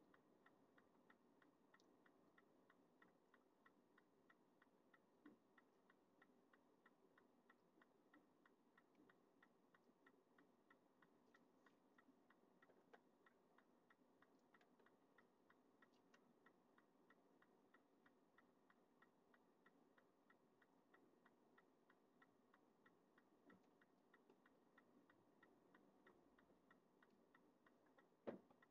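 Near silence with a faint, even ticking throughout, and a single louder knock near the end.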